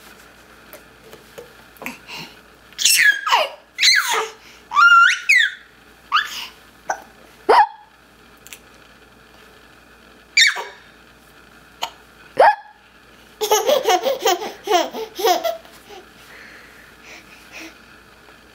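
A girl hiccuping and laughing at her own hiccups: high-pitched laughs, short sharp hiccups now and then, and a quick run of giggling laughter about three-quarters of the way through.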